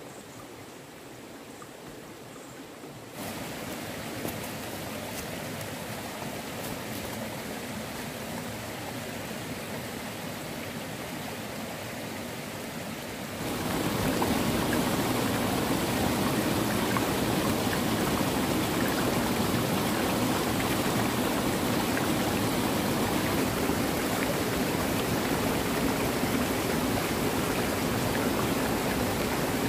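A stream flowing steadily. The sound steps up in level about three seconds in and again about halfway through.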